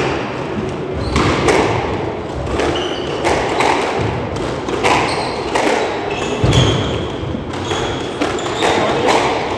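Squash rally: repeated sharp hits of the ball off rackets and the court walls, echoing in the enclosed court, with brief high squeaks of court shoes on the wooden floor.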